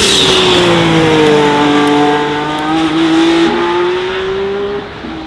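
Mercedes-AMG One's F1-derived 1.6-litre V6 engine as the car drives past: the engine note falls, then climbs again as it accelerates away, and the sound drops off near the end.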